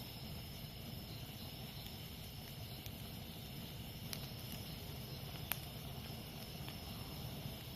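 Campfire burning with a low steady rustle and a few sharp crackles, the loudest about five and a half seconds in. Jungle insects chirr steadily behind it.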